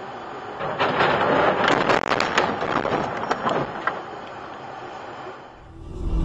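A wave of slush and wet snow thrown up by a passing vehicle hits the car's windshield and body, a dense spattering splash lasting about three seconds over the hum of road noise inside the car, then fading.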